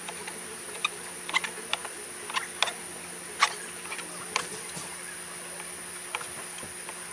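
Kitchen knife cutting beef heart into chunks on a plastic cutting board: about a dozen irregular knocks as the blade strikes the board, the loudest about three and a half seconds in. A steady high-pitched insect drone carries on behind.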